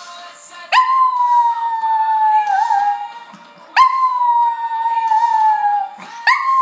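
Small white poodle howling along to music: three long, high howls, each starting abruptly with a quick upward swoop and then sliding slowly down in pitch. They come about three seconds apart, the last starting near the end.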